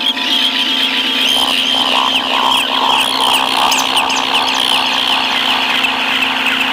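Noise music: a loud, steady electronic drone with a high tone that warbles rapidly up and down over it.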